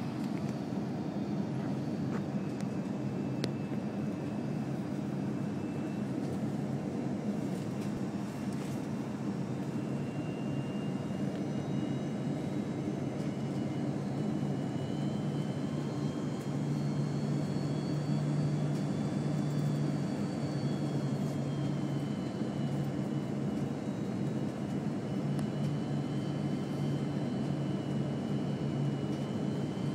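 Airbus A330-200 jet airliner's engines running with a steady drone, with faint high whine tones that slowly drift up and down in pitch.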